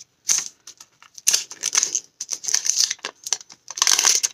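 Clear plastic wrapping on a new smartphone crinkling and tearing as it is pulled off, in several short, irregular rustles.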